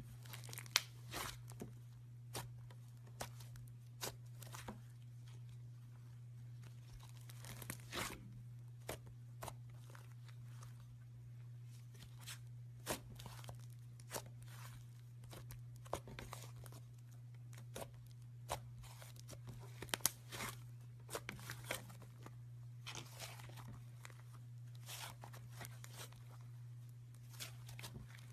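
Slime being mixed and squished by hand, giving irregular sticky pops and crackles over a steady low hum.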